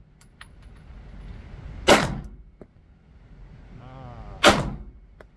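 Two pistol shots fired downrange about two and a half seconds apart, each a sharp crack with a short ring-out.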